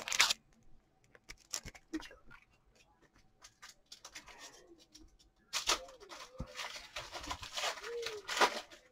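A trading-card pack's wrapper being handled and torn open: a few scattered small crinkles and clicks, then from about five and a half seconds in a denser run of crinkling and tearing.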